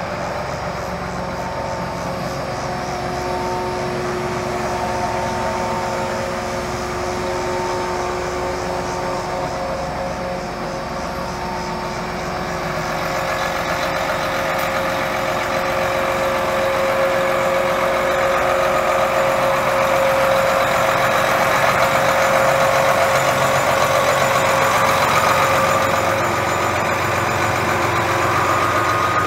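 Large John Deere tractor's diesel engine idling steadily, growing a little louder about halfway through.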